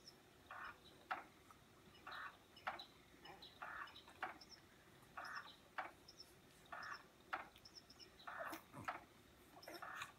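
Motorised baby cradle swing rocking, with a soft swish about every one and a half seconds, and faint high bird chirps in between.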